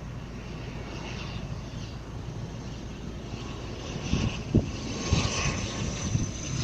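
ATR 72-600 twin turboprop engines and propellers running on landing, getting steadily louder, with a few low thumps from about four seconds in.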